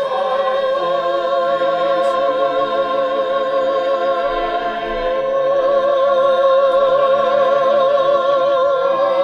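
Mixed choir of sopranos, altos, tenors and basses sustaining a chord built from held scale-degree notes, with audible vibrato. The chord shifts about five seconds in and again near the end as it resolves.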